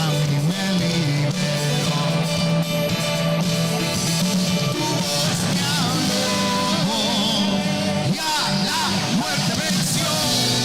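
Christian worship band playing a song, with a steady bass part underneath; about halfway through, a lead line with wide wavering vibrato comes in.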